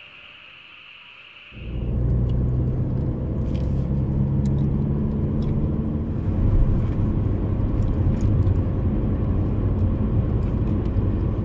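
Car running with a steady low rumble, starting abruptly about a second and a half in.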